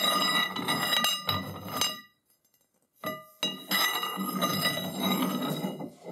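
A metal rod scraping and ringing as it is slid by hand through a lathe chuck and hollow spindle, with light clinks against the jaws; the sound breaks off for about a second partway through.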